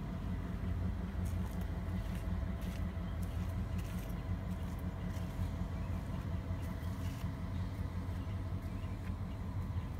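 Diesel locomotive of a Metro-North passenger train running past, a steady low engine drone with a few faint steady tones above it and scattered faint clicks.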